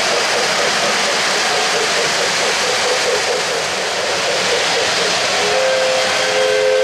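O-gauge model steam locomotive's electronic sound system: a steady hissing rush of running sounds, then a two-note steam whistle that starts about five and a half seconds in and is held.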